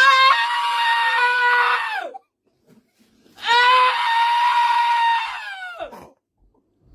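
Two long, high-pitched screaming cries of about two seconds each, separated by a short pause. Each holds a steady pitch and slides down as it ends.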